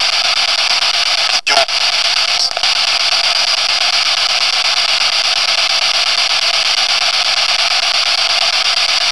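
Loud, steady hiss of static, with a brief dropout about one and a half seconds in.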